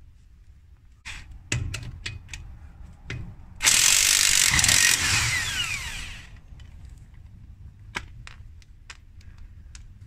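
Corded electric impact wrench loosening the lug nuts on a van's wheel. It fires in a few short bursts, then runs in one loud burst of about two seconds that trails off. A few light clicks follow.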